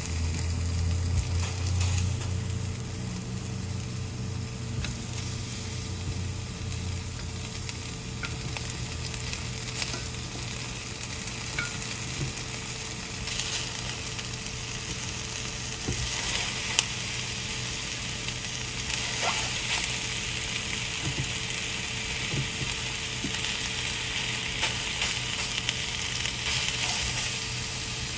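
Washed frozen chicken wings sizzling in a dry nonstick frying pan with no oil, a steady sizzle that grows brighter partway through as more wings go in. A few light clicks of tongs laying the wings in.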